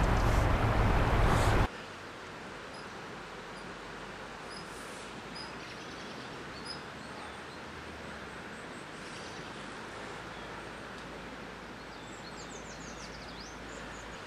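Loud rushing of wind on the microphone and fast floodwater that cuts off suddenly after about a second and a half, leaving the steady quiet hiss of the flooded river. Faint bird chirps, with a quick falling series near the end.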